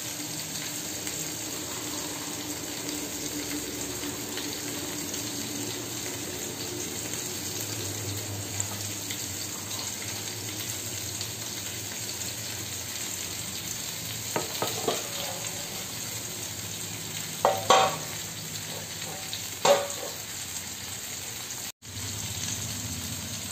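Chicken pieces shallow-frying in a little oil, a steady sizzle, while a wooden spatula stirs rice in a pot; a few short scrapes and knocks of the spatula against the pot come in the second half.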